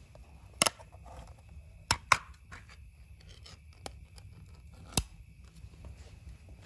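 Ring-pull tin can opened by hand: sharp metal clicks as the tab is lifted and the lid pops and tears open, with scraping and tearing as the metal lid is peeled back.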